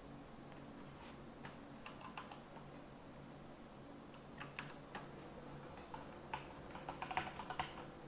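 Typing on a computer keyboard: scattered keystrokes at first, then quicker runs of keys in the second half, over a faint low hum.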